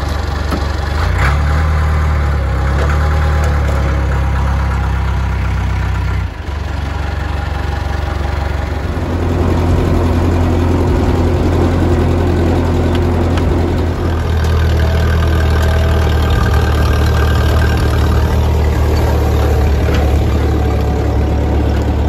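Tractor engines running steadily as the tractors drive, first a front-loader tractor, then after a break about six seconds in a second, smaller tractor.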